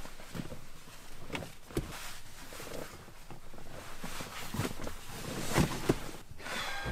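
Irregular clothing rustles and small knocks as a person shifts about in a car's driver seat and handles a knit beanie.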